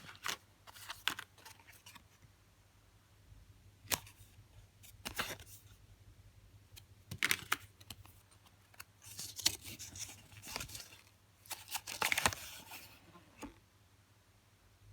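Small repair tools and kit packaging being handled: scattered sharp clicks and short rustling bursts, with a longer stretch of rustling about nine to thirteen seconds in.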